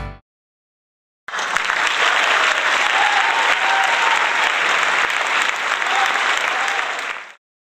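Crowd applauding, with a few voices in it. The applause starts suddenly about a second in and cuts off sharply near the end.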